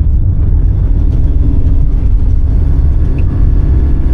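A vehicle driving, with a steady, loud low rumble of engine and road noise.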